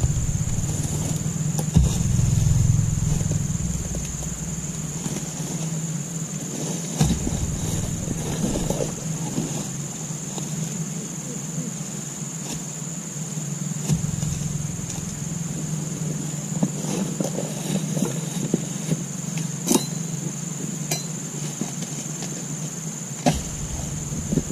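A steady low hum with a thin, high-pitched steady drone over it, broken by scattered sharp knocks. Near the end, a single sharp knock comes as a long harvesting pole is worked against the base of an oil palm's fronds.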